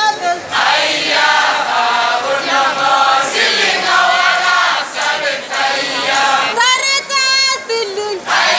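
Traditional Kalenjin song sung by a group of voices in chorus, with a single lead voice standing out briefly near the end before the chorus comes back in.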